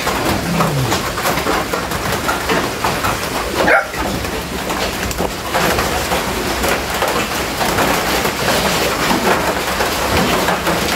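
Pigs grunting and squealing, with a brief high squeal about four seconds in.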